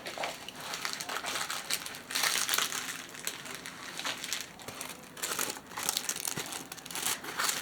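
Plastic packaging of diamond painting kits crinkling as it is handled, in irregular rustles that come and go.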